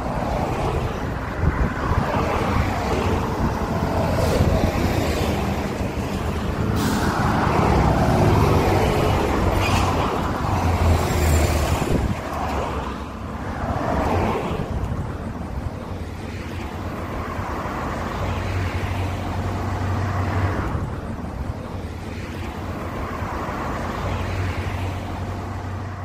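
Road traffic passing close by on a highway: cars and trucks going past one after another, the tyre and engine noise swelling and fading several times over a steady low rumble.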